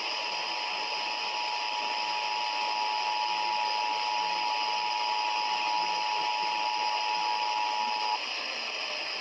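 EAS two-tone attention signal, the 853 Hz and 960 Hz tones sounding together, received over the radio with a steady hiss of static. It holds steady for about eight seconds, cuts off, and starts again near the end.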